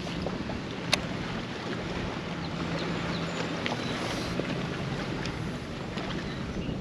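Wind buffeting the microphone over water around a small fishing boat, with a faint steady low hum and a single sharp click about a second in.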